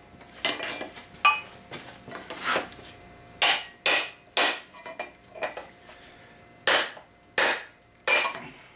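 Small hammer tapping metal on metal on the flywheel of a 2006 Yamaha 25 hp two-stroke outboard, about ten sharp ringing taps at an uneven pace, some in quick pairs. The engine is seized solid with rust from sea water, and the taps are an attempt to shock it free.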